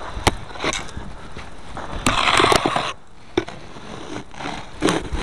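Snow scraper scraping thick, heavy, wet snow off a truck: scattered knocks and scuffs, with one longer, louder scrape about two seconds in.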